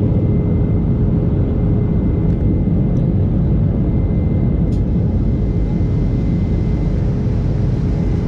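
Steady cabin noise of a jet airliner in flight, heard inside the cabin: a dense, even low rumble of the turbofan engines and rushing air, with a thin steady hum over it.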